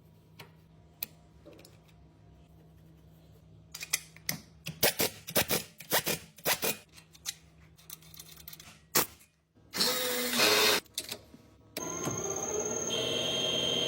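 A run of sharp metallic clicks and knocks, typical of hand tools working on an alternator, after a few seconds of low hum. About ten seconds in comes a loud rushing burst, then a steady sound with held tones to the end.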